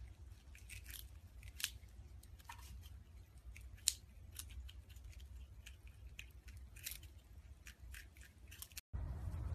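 Prairie dogs nibbling crisp pieces of food: faint, irregular crunchy clicks of their teeth, with one sharper click about four seconds in, over a low steady hum.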